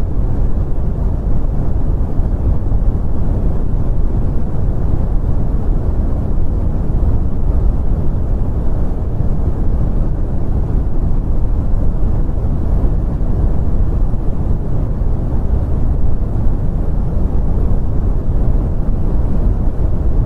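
Brown noise: a steady, even rumble with most of its energy low down and little above the midrange, unchanging throughout.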